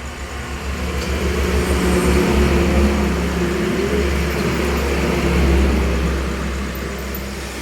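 A motor vehicle engine passing close by, growing louder over the first few seconds and then fading away.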